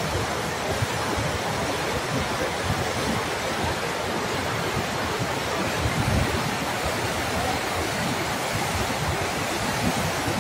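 Muddy floodwater rushing down a swollen river, a steady, even rushing noise. Wind buffets the phone's microphone on and off, with a stronger gust about six seconds in.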